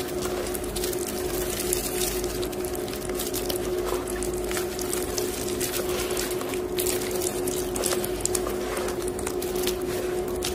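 Hands squeezing and kneading wet gym chalk soaked in water with dissolved Disprin tablets: wet squishing with many small irregular crackles. A washing machine hums steadily underneath.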